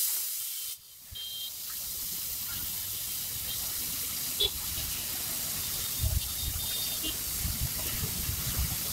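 Water splashed onto a very hot dosa griddle, a sudden splash and then a steady hiss as it flashes into steam; the hot griddle is being cleaned and cooled before the batter goes on.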